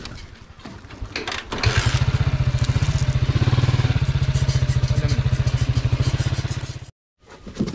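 Motorcycle engine running under way, a loud, fast-pulsing rumble that comes in suddenly about a second and a half in and cuts off abruptly near the end. Before it comes in there is only a quieter rumble of riding.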